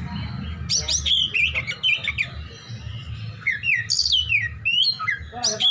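Caged oriental magpie-robin (kacer) singing in quick bursts of sharp, downward-sweeping whistles, over a steady low rumble.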